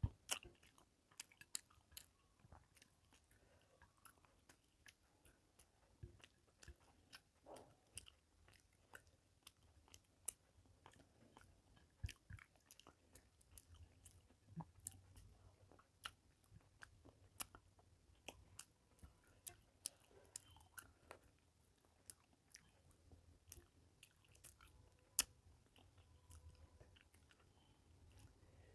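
Faint close-up chewing, with irregular soft wet clicks and smacks of the mouth, as someone eats rice and fish curry.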